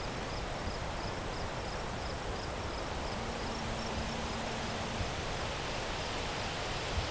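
Insects chirping in a steady, even rhythm of about three chirps a second, with a thin steady high-pitched trill, against a constant background hiss.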